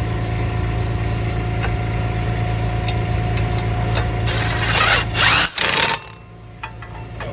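Cordless DeWalt impact wrench run in a loud burst of about a second and a half near the end, snugging a bolt. A steady low hum underneath stops at about the same moment.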